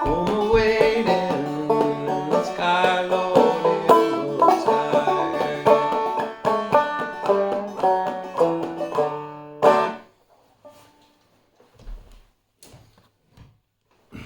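Clawhammer banjo tuned f#DF#AD playing an instrumental close with a steady picked-and-brushed rhythm, ending on a final struck chord about ten seconds in. A few faint clicks and rustles follow.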